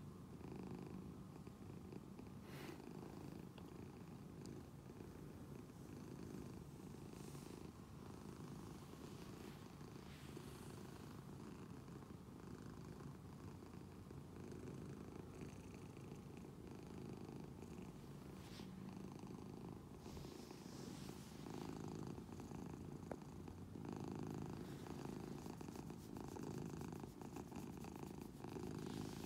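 Domestic cat purring steadily while being stroked, a little louder in the last several seconds.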